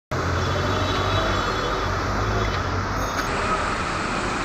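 Traffic on a flooded street: a steady low engine hum from motor vehicles under an even rushing hiss of wheels moving through water.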